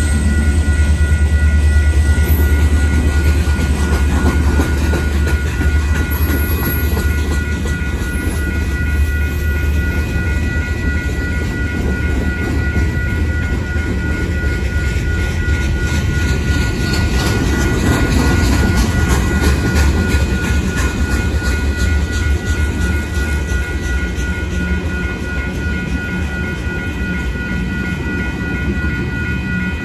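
Manifest freight train rolling past a grade crossing: a steady heavy rumble with wheels clicking over the rail joints. Thin steady tones that are typical of the crossing's warning bell ring through it.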